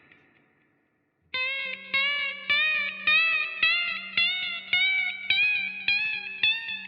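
Guitar notes picked one after another, about two a second, with the pitch creeping up step by step, starting about a second in. This is the strange noise the owner hears on the 2nd and 3rd strings from the 12th fret up after adjusting the action height and neck tension himself.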